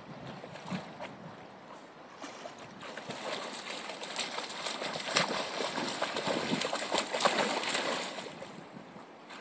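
A dog splashing as it wades and bounds through shallow river water. The splashing is quiet at first, grows busier about three seconds in and eases off near the end.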